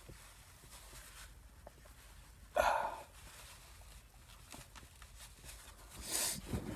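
A man's sudden short burst of breath through the nose, like a small sneeze, about two and a half seconds in, then a quick hissing sniff near the end. Cayenne pepper snuffed off a cotton swab is burning his sinuses.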